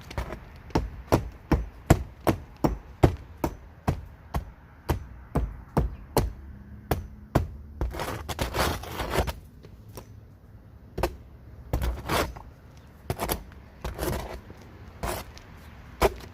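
Hammer driving old nails down into the garage roof deck, steady blows about two a second, then a longer scraping noise about eight seconds in, followed by more scattered blows.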